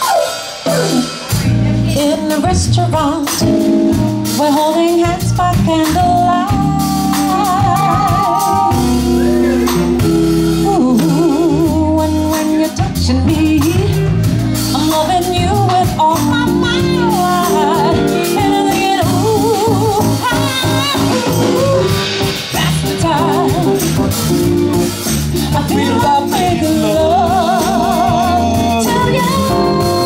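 Live jazz band playing a song, with a woman singing the melody over bass, guitar and drums.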